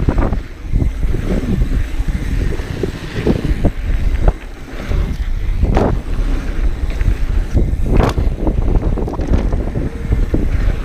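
Wind buffeting the microphone and knobby mountain bike tyres rolling fast over a dirt trail, with the bike rattling and knocking over bumps; the sharpest clatters come about six and eight seconds in.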